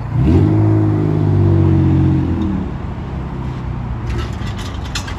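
Infiniti G35 coupe's 3.5-litre V6 engine, rolling at idle, is blipped: the pitch jumps up sharply, holds for about two seconds, then drops back to a steady idle. A few faint ticks come near the end.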